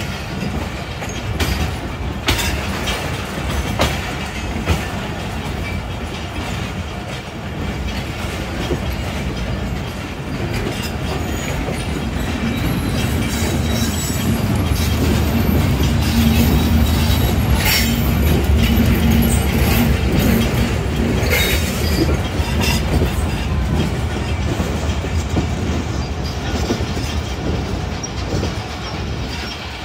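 Passenger train coach running on the rails: steady rumble of wheels on track, with a few sharp clacks over the rail joints early on. The rumble grows heavier through the middle and eases off again toward the end.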